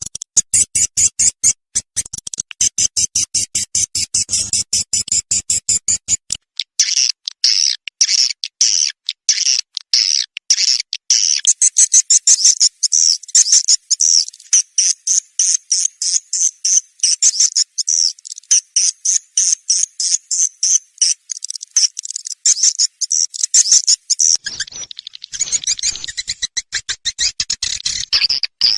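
Swiftlet lure call track: recorded edible-nest swiftlet chirps looped in fast, even, high-pitched pulses, the kind played by swiftlet farmers to draw birds into a nesting house. For about the first six seconds a deeper pulsing runs under the chirps, then only the high twittering remains.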